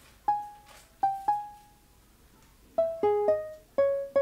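Opening music: a slow, sparse melody of single plucked-string notes, each starting sharply and dying away.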